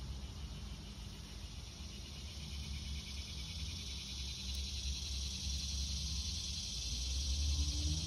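Faint, steady high chorus of insects over a low outdoor rumble; near the end a low hum starts to rise in pitch.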